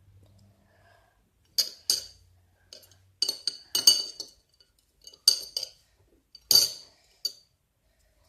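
Close-miked crunching and crackling bites, ASMR-style eating sounds of a pencil being chewed, in short sharp clusters of snaps starting about a second and a half in, with the last one near the end.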